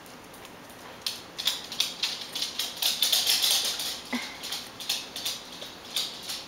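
Faint, irregular small clicks and rustling as a toddler pushes a plastic pacifier in and out of a baby's mouth.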